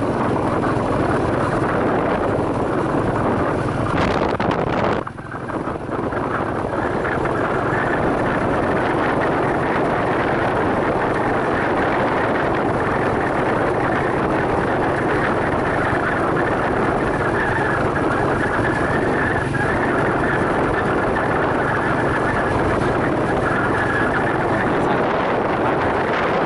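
Steady rush of wind on the microphone over a vehicle's running engine while travelling along a road. The rush dips briefly about five seconds in.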